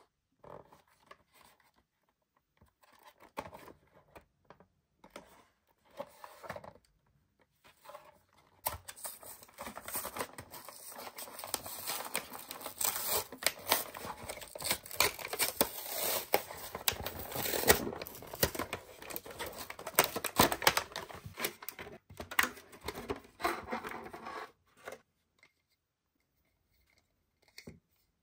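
Toy blister packaging being torn open by hand: cardboard backing tearing away from the plastic shell, with crinkling and crackling of the plastic. A few handling knocks come first, the tearing and crinkling is dense for about sixteen seconds from around nine seconds in, and it stops well before the end.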